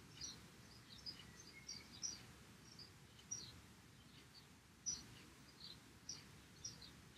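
Near silence: room tone with faint, short, high bird chirps scattered irregularly throughout.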